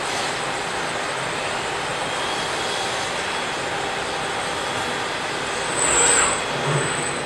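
Steady broad roar of machinery in an exhibition hall, with a brief louder hiss and a short whine about six seconds in.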